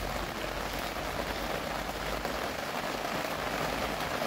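Steady rain falling, an even hiss with no distinct drops or gusts standing out.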